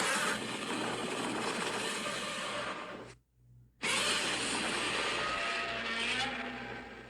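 Godzilla monster sound effect: two harsh, grating bursts of about three seconds each with a short silence between them, the second fading away.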